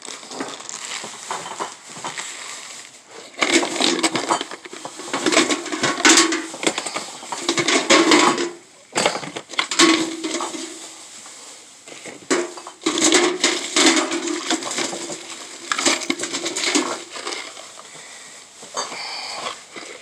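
Plastic bags and packaging crinkling and rustling, with items knocking against a metal trash can, in irregular bouts with short pauses.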